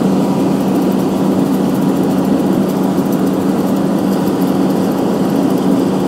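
John Deere S660 combine running while it harvests soybeans: a steady, even drone of engine and machinery.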